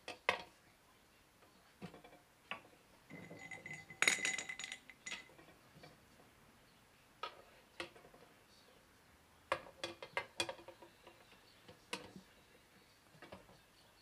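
Steel tire irons and the mounting bar of a manual tire changer clinking and clanking against the motorcycle wheel rim and the changer's frame in scattered knocks. There is a louder ringing metal clatter about four seconds in and another run of knocks about ten seconds in.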